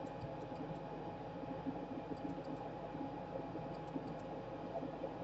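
Steady electrical hum with a few faint, scattered small clicks.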